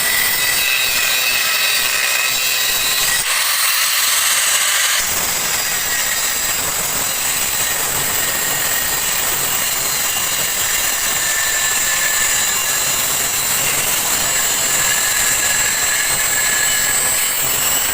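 Hand-held angle grinder running continuously as its disc grinds through the steel shell of a refrigerator compressor along the seam, with a steady high whine.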